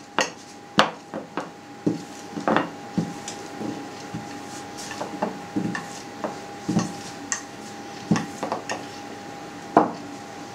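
Wooden rolling pin rolling and knocking on a pastry board as thin dough is worked by hand: scattered knocks and taps, with one louder knock near the end as the pin is set down. A steady faint hum runs underneath.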